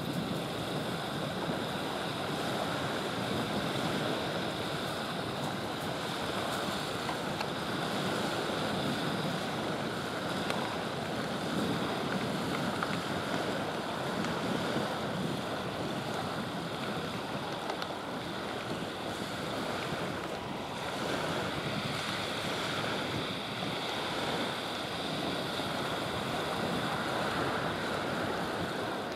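Steady outdoor wash of wind buffeting the microphone and small waves breaking at the water's edge, with no distinct events.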